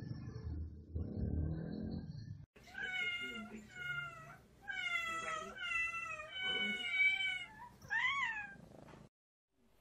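A low rumble for the first two seconds or so, then a black cat meowing about seven times in a row, demanding attention.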